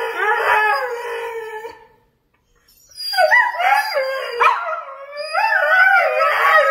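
Husky howl-talking: drawn-out yowls that bend up and down in pitch, a run of about two seconds, a pause of about a second, then more from about three seconds in.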